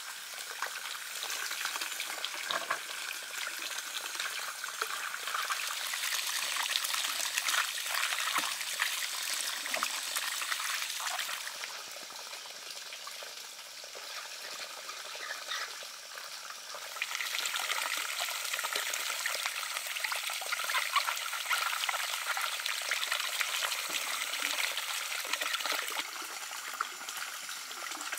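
Water splashing and trickling in a basin as quinces are rubbed and rinsed by hand, with small knocks of the fruit. The sound eases off for a few seconds in the middle, then picks up again.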